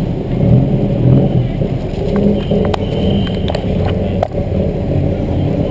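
Busy city street traffic, with motor vehicle engines running close by as a steady low rumble. A few sharp clicks and a brief high tone come through near the middle.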